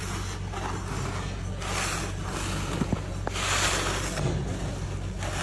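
A steady low mechanical hum, with two brief hissy rushes and a few sharp clicks near the middle.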